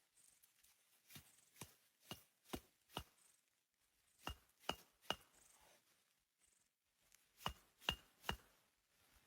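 A blade chopping into wood in three short runs of sharp strikes, five, then three, then three, about two and a half a second, each with a brief bright ring.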